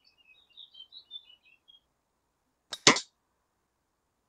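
Air rifle fitted with a sound moderator firing a single shot, one short sharp report with a quick double peak about three seconds in. Small birds chirp faintly before it.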